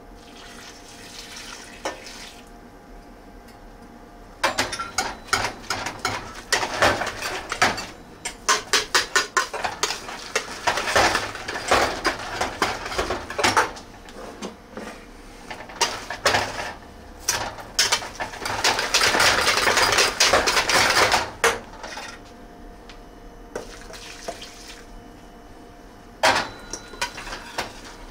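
A hand masher knocking and scraping in a pot of boiled potatoes with hot milk and butter as they are mashed. A run of quick knocks comes a few seconds in, then several seconds of dense clatter and scraping, then it goes quieter toward the end.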